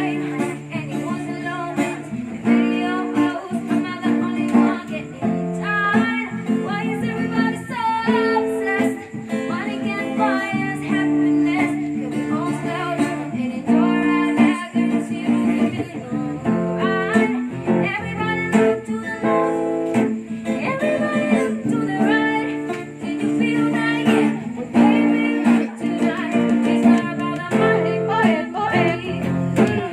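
Music: guitar playing chords with a singing voice over it.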